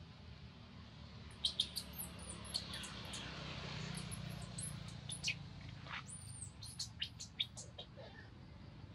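A string of short, very high-pitched animal chirps and squeaks, some sliding up or down in pitch, over a low steady hum. They start about a second and a half in and die away near the end.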